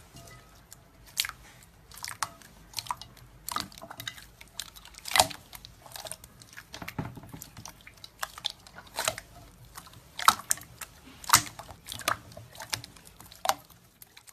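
Slime being squished and pressed by hand, giving irregular sharp pops and crackles, a loud pop every second or so with smaller clicks between.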